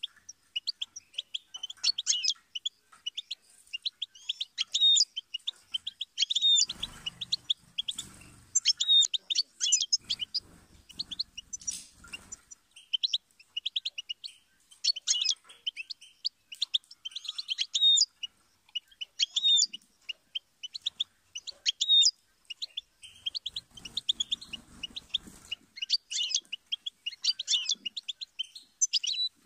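European goldfinch singing: a fast, twittering song of tinkling and chattering notes, delivered in phrases a few seconds long with brief pauses between them.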